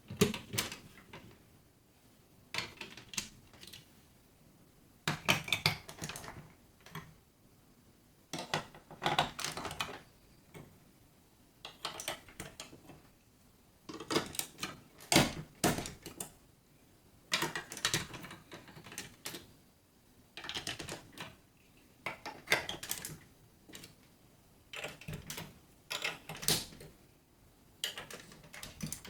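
Marbles rolling and clattering through a building-block marble run: bursts of quick hard clicks every two to three seconds, with short quiet gaps between them.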